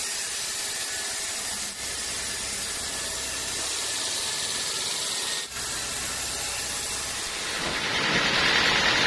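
Sawmill machinery running with a steady hissing noise, which grows louder about three-quarters of the way through.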